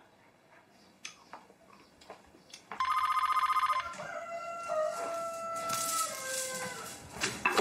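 A corded desk telephone rings once, an electronic warbling ring about a second long, about three seconds in. It is followed by a long call that rises and falls in steps, like a rooster crowing, over the light rattle of a beaded door curtain.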